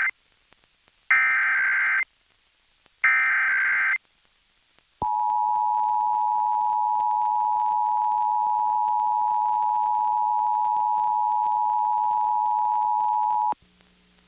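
Emergency Alert System required monthly test: two buzzy warbling SAME digital header bursts of about a second each, a second apart, following the end of a first. After a pause comes the EAS two-tone attention signal (853 and 960 Hz), held steady for about eight and a half seconds before it cuts off suddenly.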